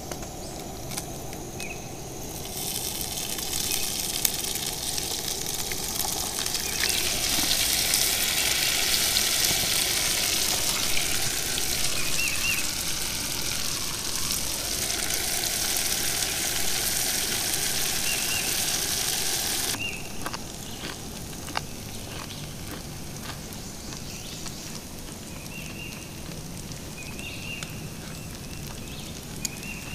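Shredded hash browns sizzling in hot grease in a frying pan on a camp stove: a loud, even hiss that starts about two seconds in, grows louder a few seconds later and cuts off abruptly about two-thirds of the way through.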